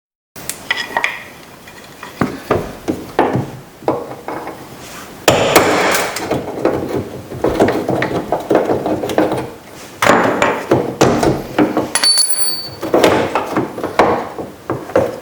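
Sped-up drilling out of a door handle's rivets with a 3/8-inch bit through the sheet-metal door: a fast, dense clatter of knocks and metallic rattles that grows louder about five seconds in and again about ten seconds in.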